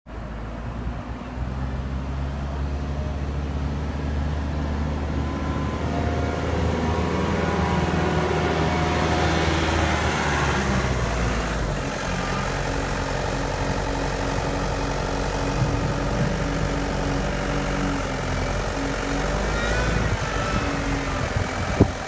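Caterpillar 906H compact wheel loader's diesel engine running as the machine drives, its note shifting about halfway through. A sharp click sounds just before the end.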